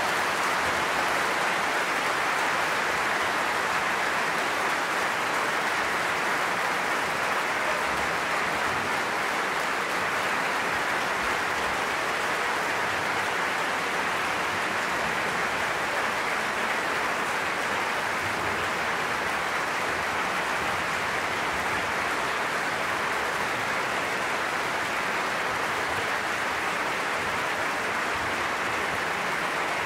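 Large audience applauding, a dense, even clapping that holds steady with no music.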